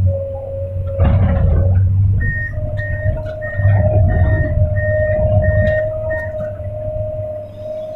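Excavator's diesel engine and hydraulics running under digging load, heard from inside the cab, with a steady whine over the rumble. About two seconds in, a warning beeper starts and sounds about seven times, a little over half a second apart.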